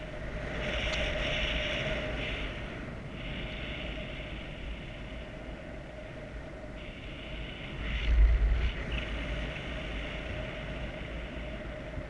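Wind buffeting the microphone of a paraglider's onboard camera in flight, with a strong gust about eight seconds in. Under it run a faint steady tone and a hiss that cuts in and out.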